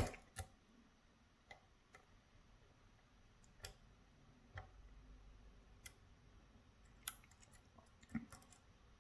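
Faint, scattered metallic clicks and ticks of a lock pick working the pins inside a Medeco Biaxial pin-tumbler lock. The sharpest click comes right at the start, with single ticks about once a second after it and a quick cluster near the end.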